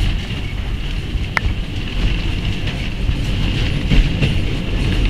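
Wooden tram car running along its rails: a steady low rumble with rattling and a sharp wheel click about a second and a half in.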